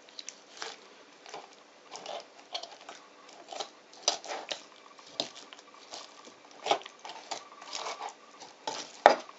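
Kitchen knife cutting and scraping raw chicken breast meat off the breastbone on a wooden cutting board. It makes irregular short scrapes and taps, with the sharpest knock near the end.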